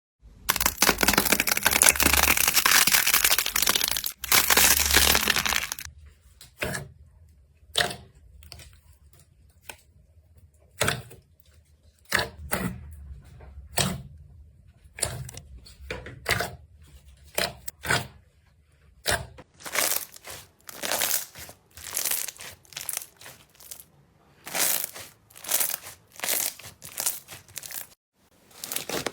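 Slime being handled, with crinkly crackling: a dense continuous crackle for the first several seconds, then a long run of short separate crackles and pops at an uneven pace.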